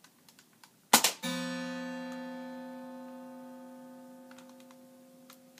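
A sharp crack about a second in, then the strings of a steel-string acoustic guitar ringing out and slowly dying away, set off by a ricocheting BB.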